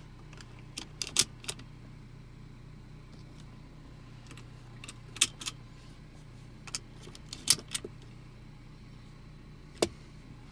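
Metal seatbelt-canceler clips clinking and clicking as they are handled and pushed into a seatbelt buckle, in several short clusters. Under them a steady low hum of the car idling.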